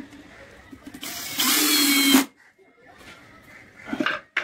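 Cordless drill driving a screw into the board: the motor runs for about a second and cuts off sharply. A couple of sharp knocks follow near the end.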